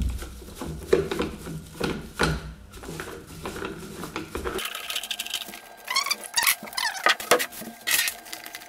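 Knocks, clatter and scraping as an old sisal-wrapped scratching post and its wooden platform are handled and twisted apart on a workbench. A few short rising squeaks come a little past the middle.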